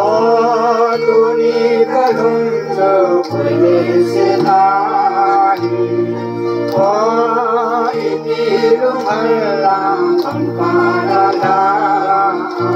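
A group of women singing a hymn together into microphones, their voices wavering, over a steady electronic keyboard accompaniment whose low notes change about once a second.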